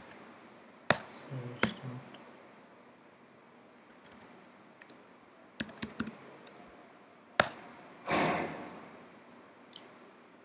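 Computer keyboard typing: scattered sharp key clicks in small groups with pauses between, and a brief rush of noise about eight seconds in.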